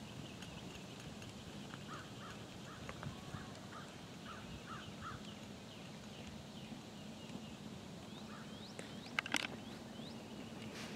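Birds calling repeatedly over a faint steady low hum, some in short chirps and some in rising notes. About nine seconds in there is a brief knock.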